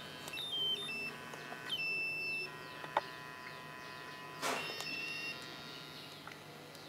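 Piezo buzzer of a homemade laser sensor circuit sounding three short high-pitched beeps, with a click and a knock from handling the board.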